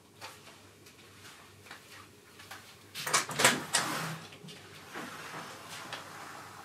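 A cluster of knocks and clatter about three seconds in, followed by softer rustling.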